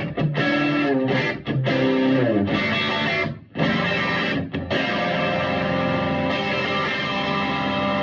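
Overdriven electric guitar played through a Vintage Sound Amp tube amplifier: bent and sliding notes, broken by a few short stops, then a chord left ringing from about five seconds in.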